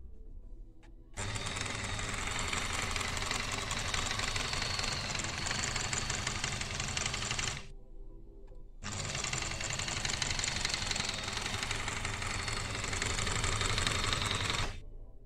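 Brother XL-4010 electric sewing machine, its covers off, running at speed twice for about six seconds each, with a short stop in between; a fast, even mechanical rhythm from the needle mechanism and motor that starts and stops abruptly.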